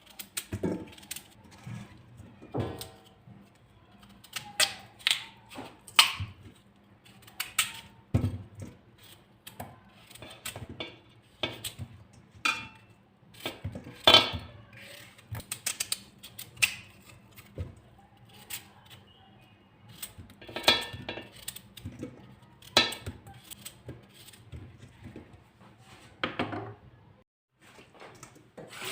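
Dishes and cutlery being handled, clinking and knocking irregularly, some strikes ringing briefly.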